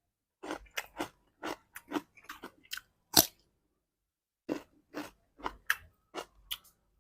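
Close-miked mukbang chewing and biting of mutton nalli: a run of short, crunchy, wet clicks at an uneven pace, with the loudest about three seconds in and a brief pause after it.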